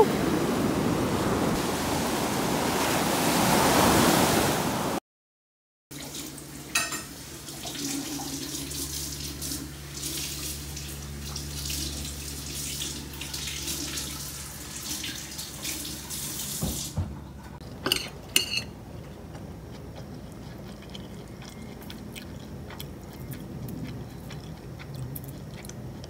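Shallow surf washing in over sand for the first few seconds. After a cut, a quieter steady hiss with a low hum that drops away about two-thirds of the way through, followed by a couple of light clicks.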